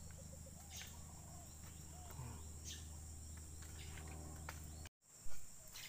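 Steady high-pitched drone of insects over a low hum, with a few faint chirps and ticks. Just before five seconds in, the sound drops out for a moment, then a low thump follows.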